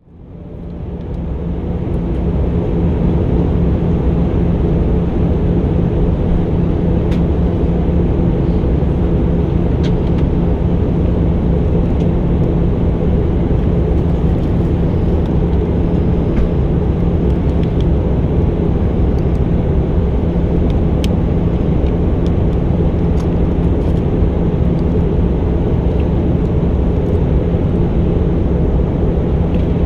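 Steady drone inside the cabin of an Airbus A319 airliner in flight: engine and airflow noise with a constant low hum, fading in over the first couple of seconds.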